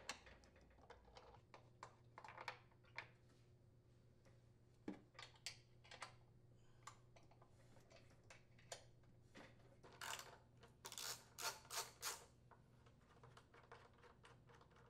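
Faint, irregular clicks and taps of a socket wrench and bolts being worked loose from the blower housing of a Briggs & Stratton riding mower engine, with a quicker run of louder clicks about ten to twelve seconds in.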